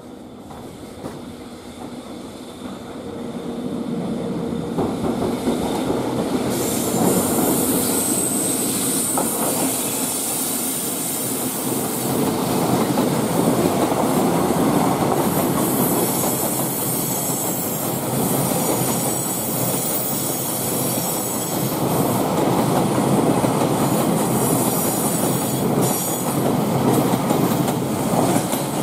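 Freight train of oil tank wagons passing close, growing louder over the first few seconds as it arrives. The wheels clatter over rail joints, and a high wheel squeal sets in about seven seconds in and continues as the wagons roll by.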